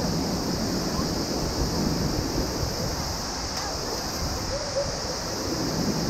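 Waterfall and rushing water: a steady, unbroken noise, with some wind on the microphone.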